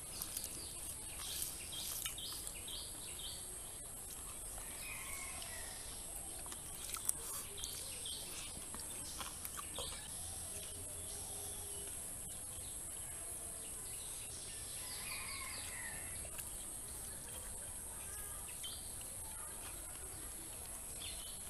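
Outdoor rural ambience: birds chirping and calling on and off over a steady high-pitched insect drone. A few short clicks are heard, the sharpest about seven seconds in.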